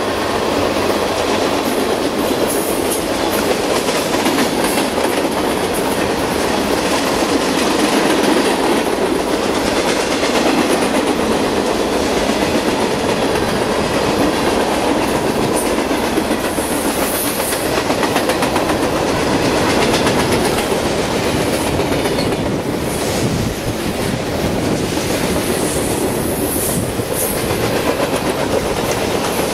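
Freight cars rolling past close by: a steady clattering rumble of steel wheels on the rails, with brief high squeaks now and then.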